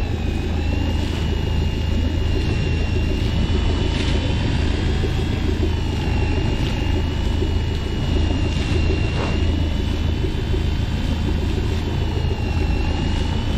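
Boat engine running steadily: a loud low hum with a thin, slightly wavering high whine above it.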